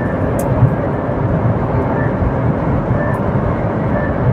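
Cabin noise of a Hyundai Venue 1.5-litre diesel at speed: a steady engine drone mixed with road and wind noise.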